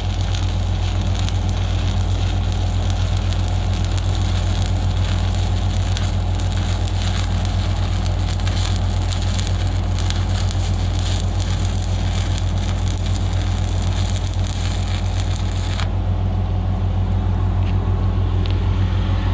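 Stick-welding arc crackling steadily as a rod burns, cutting off about sixteen seconds in when the arc is broken. A steady low hum runs underneath throughout.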